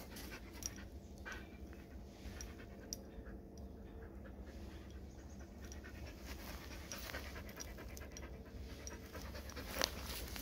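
Black-and-tan Jindo dog panting hard with its tongue out, close to the microphone, in a steady quick rhythm. A short sharp knock comes near the end.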